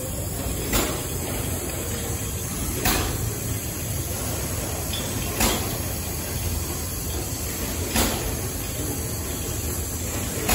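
Horizontal stationary steam engine running, with a steady low running noise and a sharp tick repeating about every two and a half seconds.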